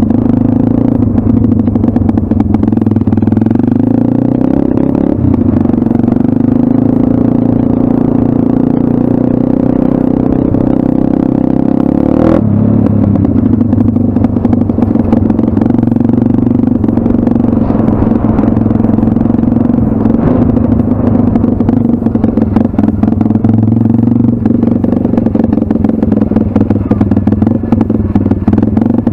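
Single-cylinder four-stroke engine of a 2019 M2R RF140 pit bike running under way at a fairly steady pitch, with many small knocks and rattles. A sharp knock comes about twelve seconds in, with a brief dip in the engine note.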